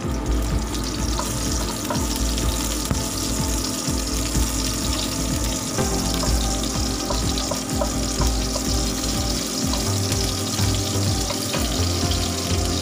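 Sliced garlic sizzling in hot oil in a wok, stirred with a wooden spatula, with a steady frying hiss. Background music with a pulsing bass line plays along.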